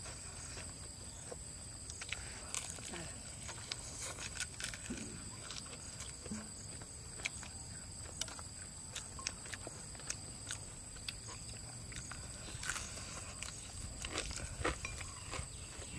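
People chewing and smacking their lips while eating crispy fried chicken legs, with many scattered small clicks and crunches.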